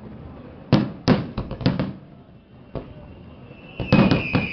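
Fireworks display: two rapid clusters of sharp bangs and crackles from bursting shells, with a single bang between them. A whistle starts faintly about halfway through, grows louder near the end and falls slowly in pitch.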